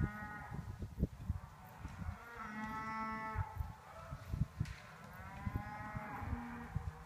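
Cows mooing: long drawn-out moos, one tailing off at the start, then two more about two and a half and five seconds in, over a low rumble with scattered knocks.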